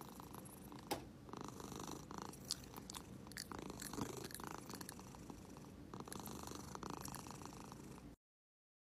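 A domestic cat purring: a continuous low rumble with a soft, regular pulse, and a few sharp clicks, the loudest about a second in.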